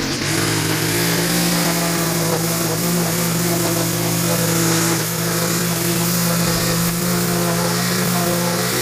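Stihl string trimmer's small petrol engine running steadily, its spinning line cutting a vertical edge along the grass border.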